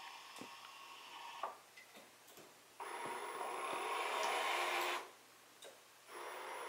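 Aries TR3200 sewer camera crawler's electric drive motors whirring as it drives and turns, in stop-and-start spells. The whir cuts out twice for about a second, with a few short clicks in the gaps.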